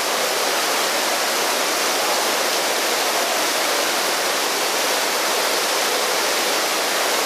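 Dense artificial rain from a rain room's ceiling pouring onto a grated floor: a steady, even rush of falling water.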